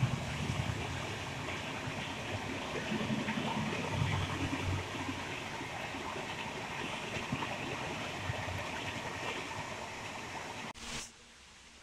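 Steady rushing of rain mixed with the low rumble of a passing passenger train on the tracks. The sound drops off suddenly near the end, with a short burst as it cuts.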